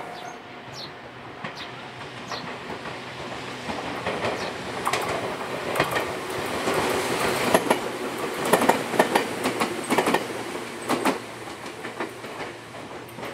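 A two-car Ryutetsu Nagareyama Line electric train passing close by, its wheels clacking over the rail joints. The clacks build to their loudest in the middle and ease off near the end.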